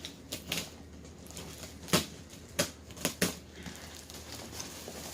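Cardboard and plastic packaging being worked open by hand: a run of sharp knocks, clicks and crinkles, the loudest about two seconds in.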